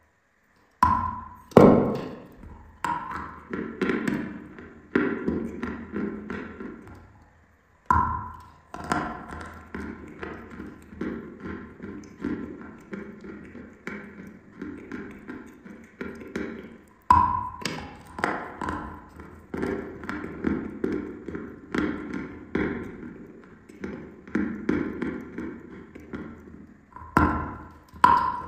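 Dry chalk being bitten and chewed: a sharp snap each time a chunk is bitten off, four times, each followed by steady dry crunching at about two or three crunches a second.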